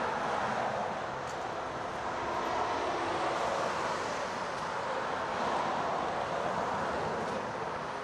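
Steady freeway traffic noise that swells and eases a few times as vehicles pass.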